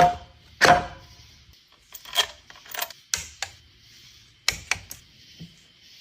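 Metal parts and tools being handled: several sharp clinks and knocks at irregular intervals, the first two ringing briefly.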